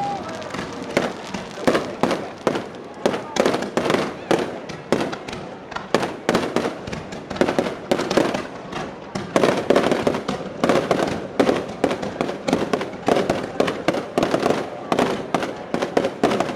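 Fireworks display going off in a rapid, continuous run of bangs and crackles, several a second, with bigger bursts standing out.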